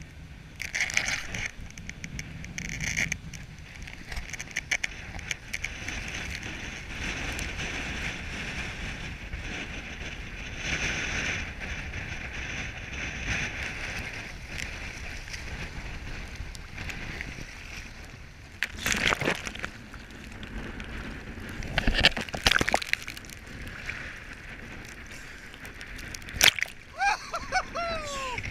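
Water sloshing and splashing around a sailing boat in heavy weather, over a steady rush. Several sharp splashes or knocks come in the second half, and a brief falling squeal sounds near the end.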